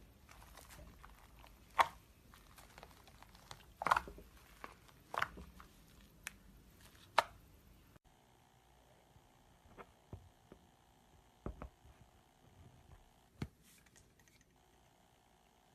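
Slime being handled, with sharp sticky pops and clicks every second or two as it is pressed and pulled. About halfway through the sound changes to fainter, scattered clicks over a low steady hum.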